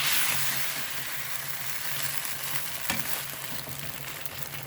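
A chips mayai (French fries omelette) sizzling in hot oil in a frying pan. The sizzle swells sharply at the start, as it is turned over onto its other side, then settles to a steady frying hiss, with a single knock about three seconds in.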